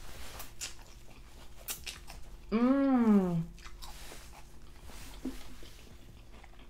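Close-up chewing and biting of pho noodles and beef, with small wet mouth clicks throughout. About two and a half seconds in comes a loud hummed 'mmm' of enjoyment, its pitch rising then falling, lasting under a second.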